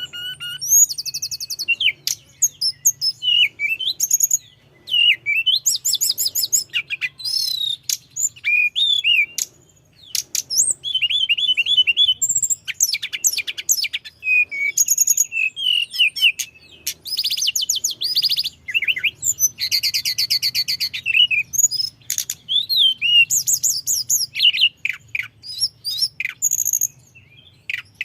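Tledekan gunung songbird singing a fast, continuous rolling song of varied high chirps, sweeping whistles and rapid trills, with only brief gaps. A faint low hum runs underneath.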